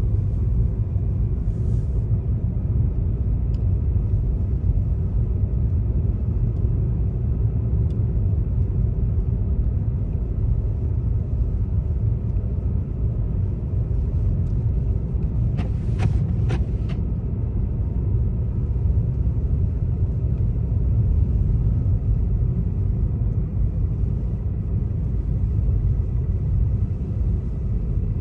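Steady low rumble of a car driving: road and engine noise, with two or three short clicks a little past halfway.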